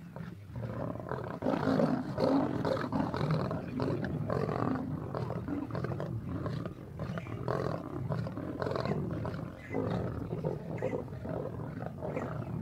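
Lionesses growling and snarling at one another as they feed crowded together on a kill, each holding its place at the carcass against the others. The noise grows louder about a second and a half in and stays busy and irregular.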